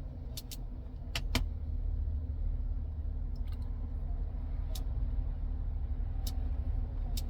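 BMW X5 running steadily with a low rumble, with a few light sharp clicks scattered over it.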